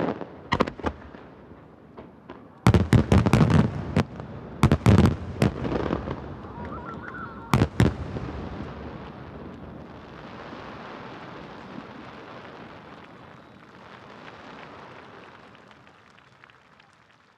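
Large fireworks shells from a Super Vesuvius display bursting: clusters of loud booms over the first eight seconds, then a softer lingering noise that slowly fades out.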